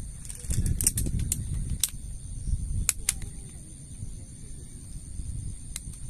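Camping gear handled on grass: rustling with sharp, light clicks of metal poles being sorted and fitted together, a cluster of clicks in the first two seconds, two near the middle and one near the end, as a folding pole stand is assembled.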